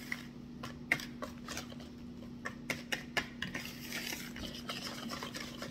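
Wire whisk beating muffin batter in a plastic mixing bowl, with quick, irregular clicks and taps of the wires against the bowl. A faint steady hum sits underneath.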